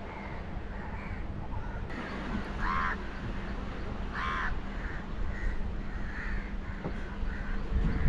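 Crows cawing: two loud harsh caws about a second and a half apart, with fainter caws from other crows around them.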